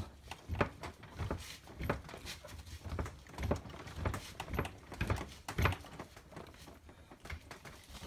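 Irregular metal clicks and knocks from a seized 1977 VW Type 2 bus sliding-door hinge clamped in a bench vise, as its stuck part is worked back and forth to free it.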